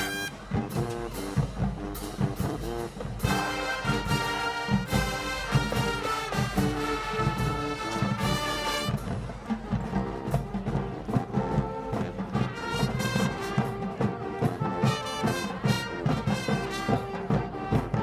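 Marching band playing: the brass section carries the tune over drums keeping a steady beat.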